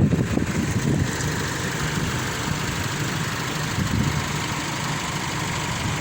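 An engine running steadily at idle: a low rumble with a faint steady hum over it.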